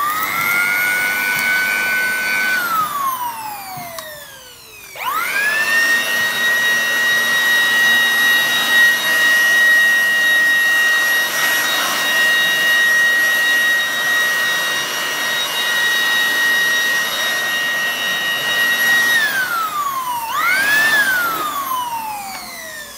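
Makute PB001 800 W electric blower blowing: its motor whines up to speed, runs a couple of seconds and spins down with a falling whine. It starts again about five seconds in, runs steadily with a high whine and air rush for about fourteen seconds, then winds down, with one short blip of power near the end before spinning down again.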